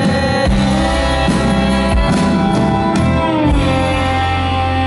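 Live band music: an acoustic guitar strummed over held notes and a sustained low bass, with about three deep beats, played through an arena PA.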